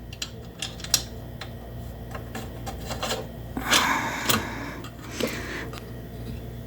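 Light clicks and metallic rattling as a washer and wing nut are fitted by hand onto a bolt, with a louder scraping rattle about four seconds in.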